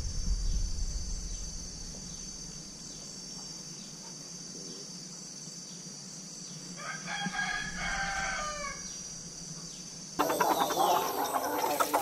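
A rooster crows once, one drawn-out call of about two seconds that drops at the end, over a steady high insect drone. About ten seconds in, the sound cuts to louder, busier yard noise with chickens.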